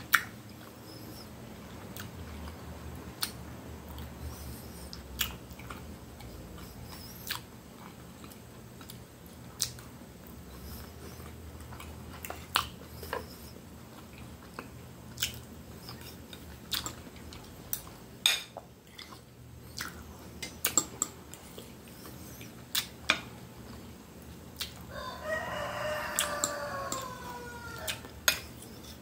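Fork and knife clicking and scraping on a dinner plate, with chewing between the sharp clicks. Near the end a rooster crows once, a falling call lasting about three seconds.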